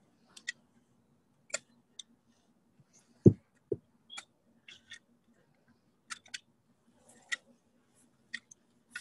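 Shovels scraping and crunching into a mound of loose earth in short, separate strokes, with two heavy thuds a little over three seconds in as shovelfuls of earth drop into the grave.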